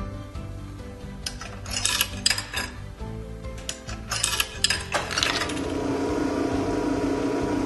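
Coins clinking and clicking as they drop through the coin mechanism of a coin-operated player piano, in two bursts. About five seconds in, the player piano starts playing with held low notes.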